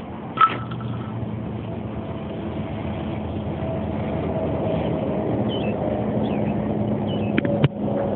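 A motor vehicle engine running steadily and growing gradually louder. There is a sharp click about half a second in, and a few short high chirps come later.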